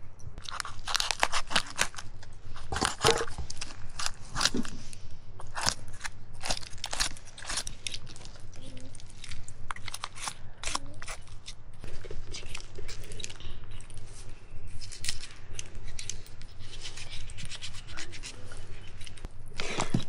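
Irregular run of sharp clicks and short crackling noises, several a second at times, over a faint low hum.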